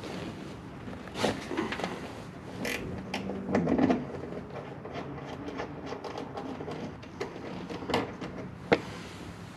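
Metal clinks, knocks and light ticking of a 10 mm wrench and a ground strap being handled while bolting the strap on, over a faint steady hum.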